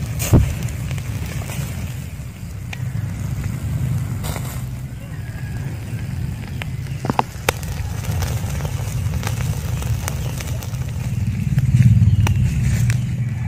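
Pomfret grilling in a wire basket over a charcoal fire, crackling with a few sharp pops scattered through, over a steady low rumble.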